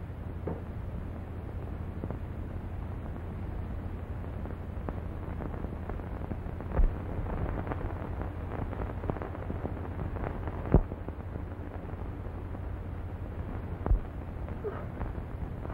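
Worn optical soundtrack of a 1930s film print: a steady low hum and hiss with light crackle, broken by three loud pops about 7, 11 and 14 seconds in.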